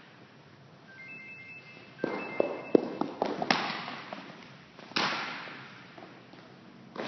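A baseball bouncing on a hardwood gym floor and smacking into leather gloves during a fielding drill. A quick run of sharp taps and thuds comes about two seconds in, then two loud smacks that echo through the hall.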